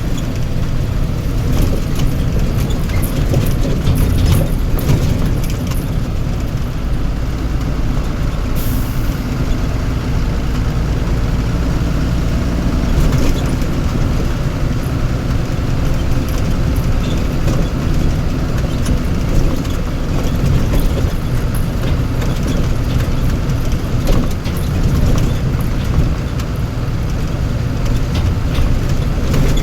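Motor vehicle engine running with steady low road rumble and scattered rattles, and a short hiss about nine seconds in.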